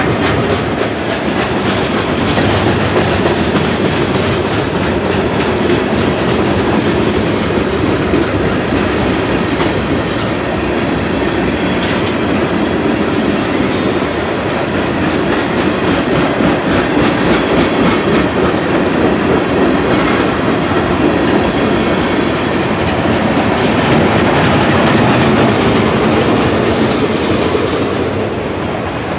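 A long mixed freight train's cars (boxcars, tank cars and covered hoppers) rolling past on the rails: a steady rumble with the wheels clicking repeatedly over the track.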